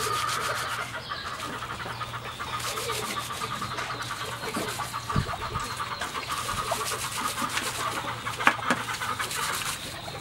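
Hands stripping and snapping fresh pumpkin stems and leaves: a rapid crackly scratching and rustling with a few sharper snaps, over steady background chirping.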